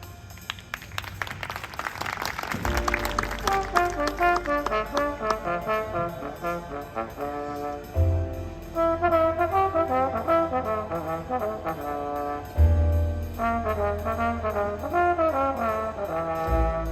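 High school marching band playing a brass-led arrangement. A light passage of quick percussion strokes builds into full brass chords about three seconds in, with heavy low accents twice later on.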